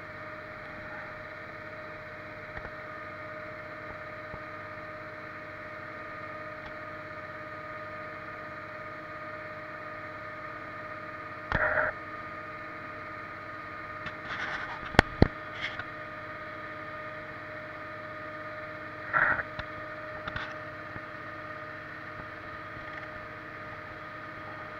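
Livestock feed mixer wagon running steadily, with a drone made of a few even tones, while it mixes a load of silage and haylage into a total mixed ration for milk cows. Two brief louder clunks come through it, and a pair of sharp knocks near the middle are the loudest sounds.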